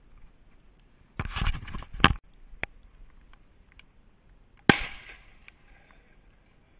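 About a second of rustling with two sharp snaps, then, past the middle, a single sharp report with a short echoing tail: a shotgun shot during a pheasant hunt.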